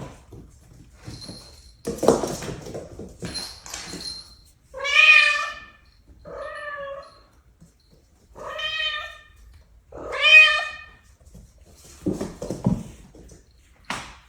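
A domestic cat meowing four times, each meow long and drawn out, about a second apart, with rustling and scuffling before and after.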